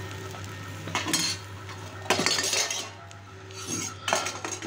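Steel ladle scraping and clinking against a steel kadai in several short bursts as the fried dal, chillies and coconut are scooped out of the pan.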